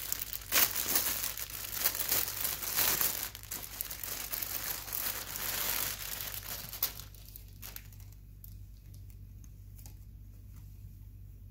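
Clear plastic poly bag crinkling as it is handled and opened and a pair of knit pants is pulled out of it. The crinkling is dense for about the first seven seconds, then dies down to a few faint rustles.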